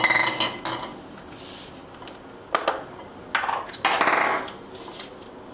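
Small plastic draw capsules clattering against a glass bowl as one is picked out. Then a few sharp separate clicks and a short scrape as the capsule is handled and twisted open.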